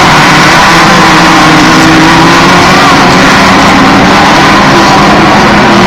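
Engines of Class 1600 off-road race cars running loud and steady, with several engine notes wavering in pitch.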